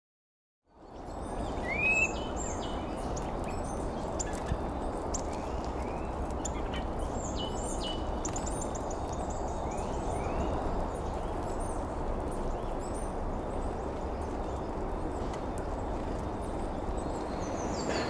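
Small songbirds of a garden feeder, tits and nuthatches, giving many short chirps and call notes, over a steady low background rumble. The sound fades in just under a second in.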